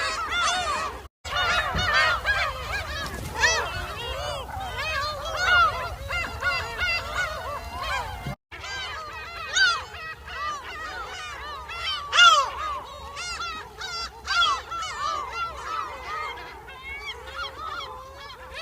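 A flock of geese honking, many overlapping calls at once. The sound cuts out for an instant twice, about a second in and near the middle.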